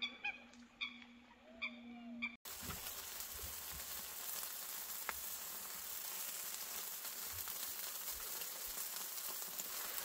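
Birds giving short, repeated calls about every half second, then an abrupt change at about two and a half seconds to chicken wings sizzling over a charcoal grill: a steady crackling hiss with small pops, louder than the calls.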